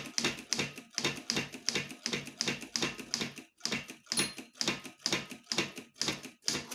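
Typewriter keys struck one after another at an even, unhurried pace, about four clicks a second, each a sharp mechanical clack.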